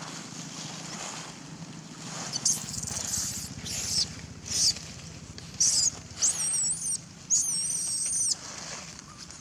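Infant long-tailed macaque crying in distress: a run of shrill, high squeals that grow longer, ending in two drawn-out, steady-pitched screams about six and seven seconds in.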